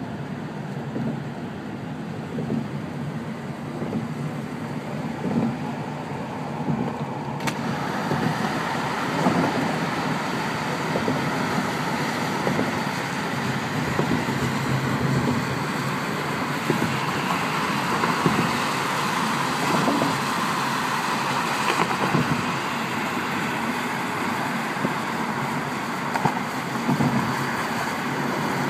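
Steady road noise of a car being driven, a low tyre and engine rumble. About seven seconds in, a louder hiss comes in suddenly and stays.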